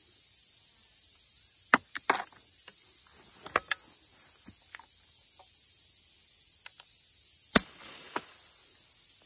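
A few light metallic clicks from a Bergara BA-13 break-action .357 Magnum rifle being loaded and closed. About three-quarters of the way through comes one suppressed shot: a subsonic 200-grain cast-lead load through an A-Tec Optima 60 suppressor, a short sharp crack with a brief echo after it. A steady high insect hiss runs underneath.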